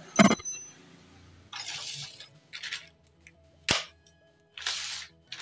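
Handling and tightening a metal brake-hose clamp on a motorcycle front fork: one sharp, ringing metallic clink just after the start, then several short scraping rasps and a single sharp click.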